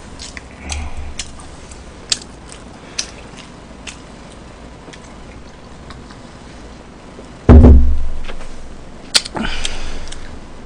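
A person drinking from a large plastic cola bottle, with faint swallowing and handling clicks. About seven and a half seconds in comes the loudest sound, a sudden low thump that fades over a second or so, then a sharp click and a breathy rush near the end.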